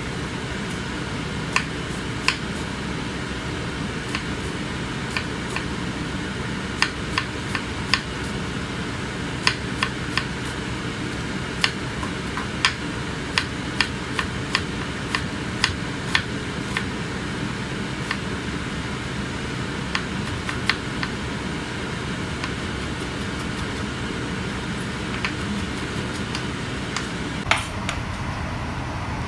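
Steady mechanical hum with scattered sharp, irregular clicks and taps of kitchen utensils against dishes.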